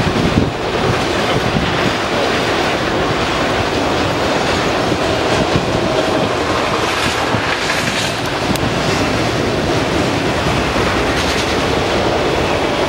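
CSX freight train of autorack cars rolling past: a loud, steady rumble and clatter of steel wheels on the rails.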